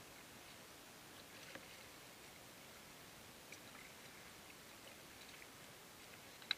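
Near silence: a faint hiss with a few soft ticks and a sharper click near the end.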